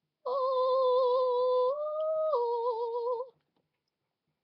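Someone humming one held note for about three seconds, the pitch wavering slightly, stepping up briefly in the middle and then back down.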